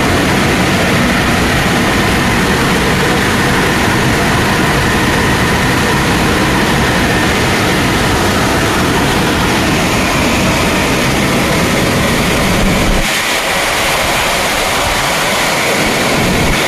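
Automatic car-wash gantry's air dryers blowing in the drying stage: a loud, steady rush of air. The low rumble drops out about 13 seconds in while the hiss carries on.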